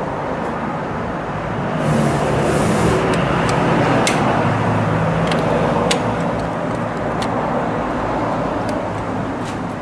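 Steady motor-vehicle noise that swells from about two seconds in and eases off after about six seconds, with scattered light clicks as stainless windshield trim molding is pressed by hand onto the windshield frame.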